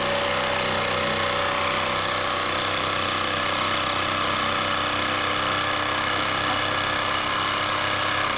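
Electric jigsaw running steadily as its blade cuts through a wooden board.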